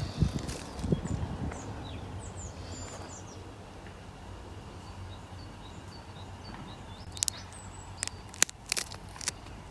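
Fruit crushed in the hands: wet squelching in the first second or so, then several sharp cracks near the end. Birds chirp over a steady outdoor background.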